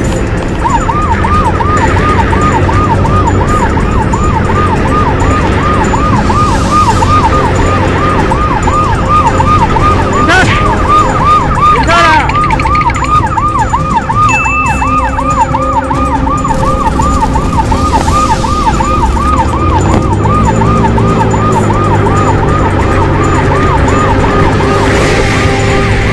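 Police motorcycle siren sounding a fast up-and-down warble, about three to four sweeps a second, starting about half a second in and running on without a break. Under it runs a loud, steady rumble of engine and wind from the moving motorcycle.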